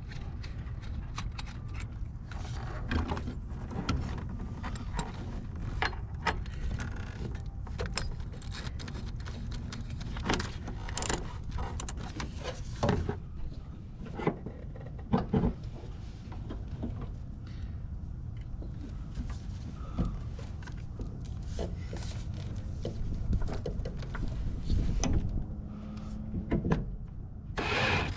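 Scattered metallic clicks, clinks and knocks of hand tools and parts being handled, over a steady low rumble.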